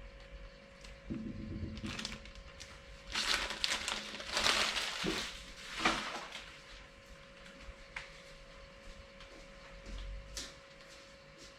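Crinkling and rustling handling noise, like packaging being opened, loudest in a cluster in the middle, with a few single clicks later, over a steady faint hum.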